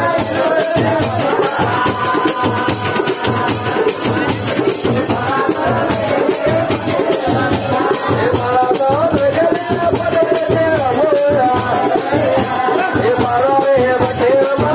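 Loud music: a melody line that wavers and bends in pitch, over fast, dense percussion.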